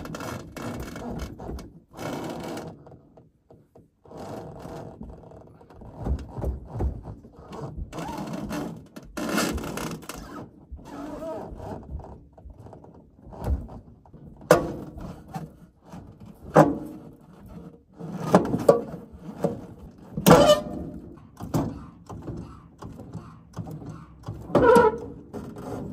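Irregular metal clunks, knocks and scraping as a pickup truck is jacked and pushed off a trailer onto loading ramps. A handful of sharper, louder thunks come in the second half.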